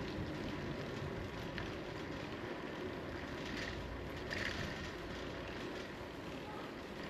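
Steady rolling rumble of a bicycle riding along an asphalt street, with wind on a bike-mounted microphone. A couple of brief faint high chirps come near the middle.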